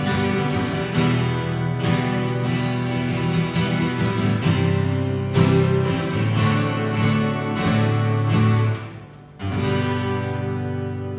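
Three acoustic guitars strumming chords together. Near the end the playing breaks off briefly, then a last chord is struck and left ringing, fading slowly.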